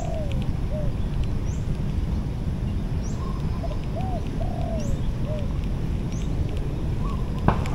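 Doves cooing in short arched notes, with another bird giving a brief high chirp every second or two, over a steady low rumble. A single sharp knock near the end.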